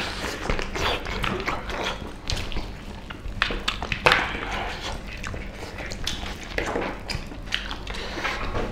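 Two people eating curried meat and rice with their hands: chewing and mouth noises, with scattered irregular clicks and taps of fingers and food on the plates.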